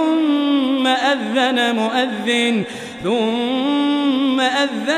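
A man's voice reciting the Quran in melodic tajweed, holding long drawn-out notes. He pauses briefly for breath about three seconds in, then starts another long note.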